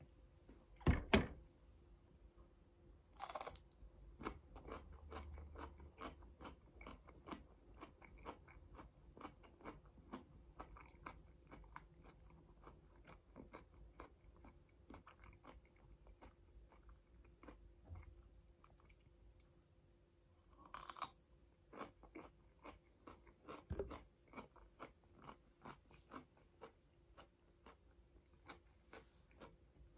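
A person chewing and crunching okra pods, many small crunching clicks in a steady run, with a few louder knocks about a second in and again later on.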